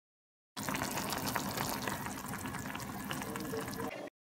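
Liquid bubbling on the boil, with many small pops. It starts abruptly and cuts off after about three and a half seconds.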